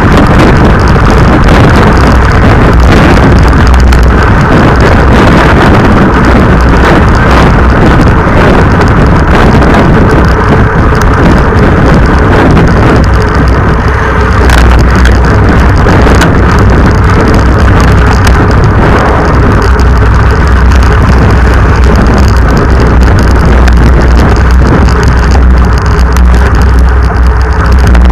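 Wind buffeting the microphone of an action camera on a road bicycle moving at race speed: a loud, steady rumble.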